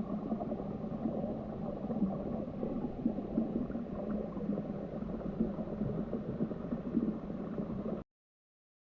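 Muffled bubbling and gurgling of rushing stream water heard underwater, steady, then cutting off abruptly to silence near the end.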